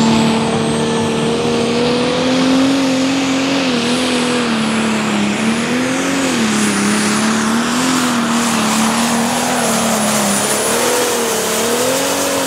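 Pro Stock pulling tractor's turbocharged diesel engine running hard under load. Its pitch rises and dips again and again, with a thin high whine above it, and the sound falls away sharply at the very end.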